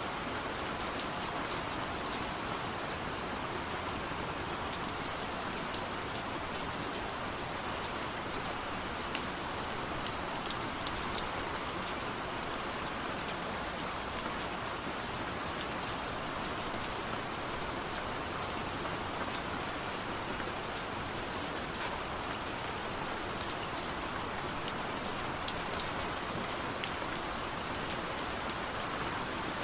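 Steady rain falling, an even hiss with many scattered individual drops ticking on a surface.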